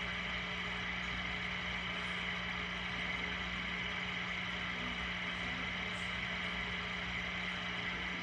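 A machine running steadily: a low hum under an even hiss.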